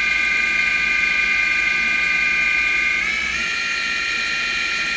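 Live-tool spindle of a Samsung SL2500BY CNC lathe running free at 3500 RPM, a steady whine of several high tones. About three seconds in the tones step up slightly in pitch as the spindle speed is raised to 4000 RPM.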